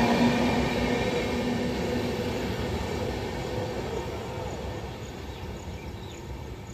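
Express passenger train rolling away after its last coach passes, the rumble of its wheels and a steady hum fading steadily into the distance.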